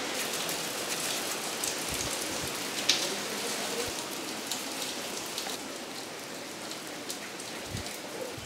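Steady rain: an even hiss with scattered small ticks of drops. A few soft low knocks come from the brass dough press being handled.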